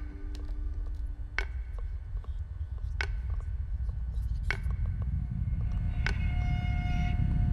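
Horror-film sound design: a low rumbling drone that swells slowly, with a sharp ringing click about every second and a half. A few high held tones join in near the end.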